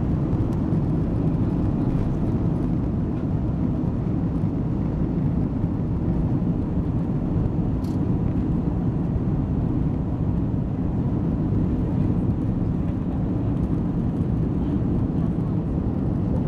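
Jet airliner engines at takeoff thrust through lift-off and the start of the climb, heard from inside the cabin as a steady, loud, deep rumble.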